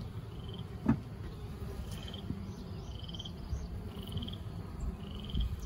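A small animal's short, high trilling call repeated about once a second, over the low steady hum of honeybees at the open hive. A single knock about a second in.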